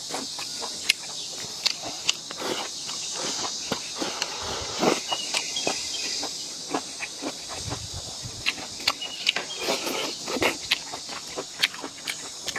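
A person eating close to the microphone: wet chewing and mouth smacks with irregular sharp clicks, over a steady high hiss.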